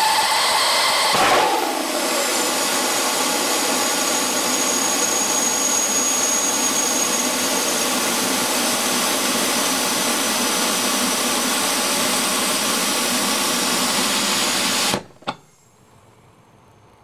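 Hybrid rocket motor burning gaseous oxygen with a Plexiglas fuel grain, exhausting through an aerospike nozzle: a loud, steady rushing hiss, with a whistling tone that drops in pitch and fades about a second in. About fifteen seconds in the burn cuts off suddenly, followed by a single short pop.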